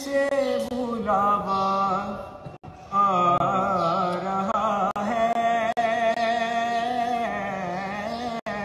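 A young man singing a naat solo and unaccompanied, drawing out long, ornamented notes whose pitch wavers and glides, with a brief pause about two and a half seconds in.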